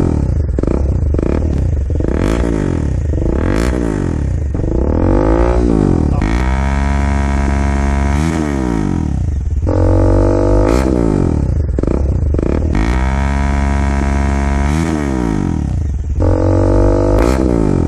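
Kawasaki Dominar 400's single-cylinder engine revved through an aftermarket slip-on muffler being test-fitted. The throttle is blipped up and down again and again, with steadier stretches of deep idle between blips in the second half.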